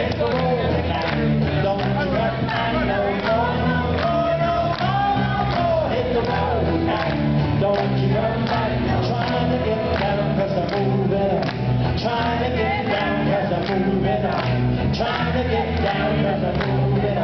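Live folk song: a man singing into a microphone while strumming an acoustic guitar in a steady rhythm.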